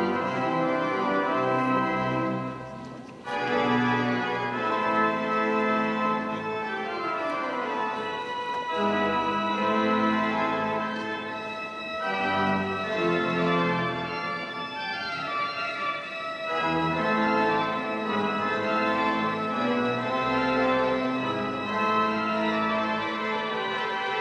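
Organ playing: sustained full chords that change every few seconds, with a brief break about three seconds in.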